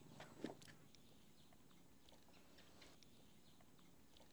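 Near silence: faint outdoor background with scattered small clicks and chirps, and one brief faint sound about half a second in.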